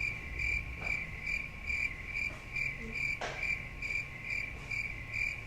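Cricket chirping in an even, steady pulse of about two chirps a second, over a low hum.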